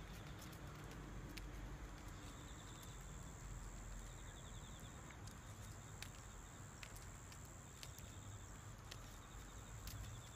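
Quiet outdoor ambience: faint insects chirping in short pulsed trills, over a thin steady high tone, with a few soft clicks.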